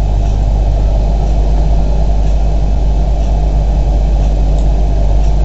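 Steady low hum and hiss from the Z07 webcam's built-in microphone: its noise floor is very high.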